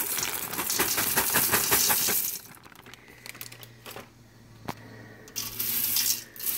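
Dry egg noodles rattling as they pour out of a plastic bag into a stainless steel Instant Pot inner pot with stock in it: a dense patter of small clicks that stops about two seconds in. After that there are only a few soft clicks, then a short burst of rustling near the end as a hand presses the noodles down into the stock.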